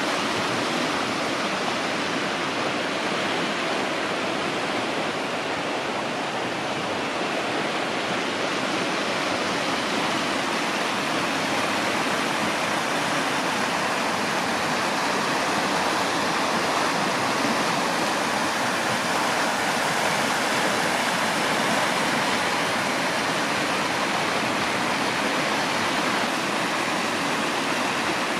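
Steady, unbroken rushing noise with no distinct events, like running water.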